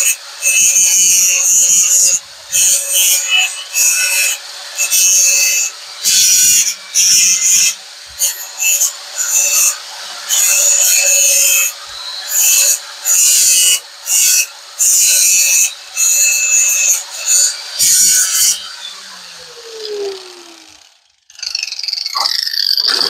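Electric grinder working metal in a string of short passes, each a harsh grinding burst over the motor's steady whine, as welds are ground smooth; about nineteen seconds in the grinding stops and the motor spins down.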